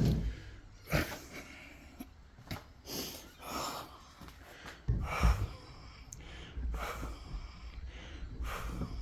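A man breathing hard in uneven breaths, with a sharp click about a second in and a few low bumps.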